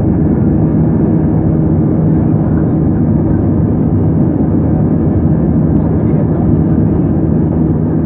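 Airbus A320-212 airliner running, heard from inside the cabin: a steady drone of engine and airflow noise with a constant low hum.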